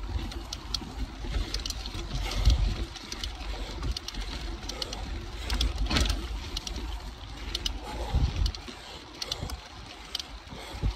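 Cervelo Aspero gravel bike on 650b wheels and 47c tyres rolling fast down a dirt singletrack: tyre and wind rumble on the microphone, with frequent irregular clicks and rattles of the bike jolting over roots and rocks.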